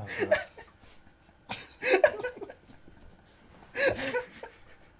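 Men laughing helplessly, partly stifled, in three bursts about a second and a half to two seconds apart, with quiet breathing between.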